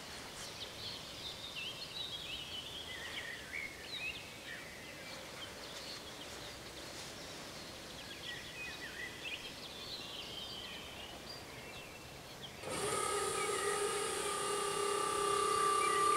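Small birds chirping and singing over quiet rural ambience. About twelve and a half seconds in, a level crossing's electronic warning bell starts ringing as a steady, high tone that sounds while the barriers lower.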